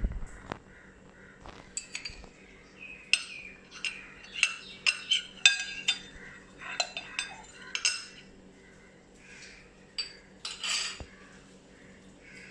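Utensil clinking and scraping against the pizza bowl while olive oil is spread in it: a run of sharp, irregular clinks, some ringing briefly, thickest from about three to eight seconds in.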